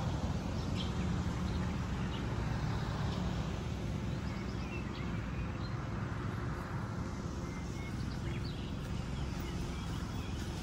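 Outdoor ambience: a steady low rumble with a few faint, short bird chirps scattered through.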